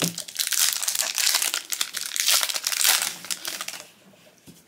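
Foil trading-card booster pack wrapper crinkling as it is opened by hand, stopping near the end.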